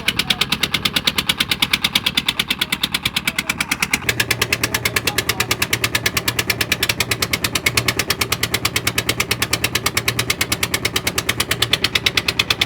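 Boat engine running with a rapid, even chugging of about ten beats a second. About four seconds in, a low steady hum joins it.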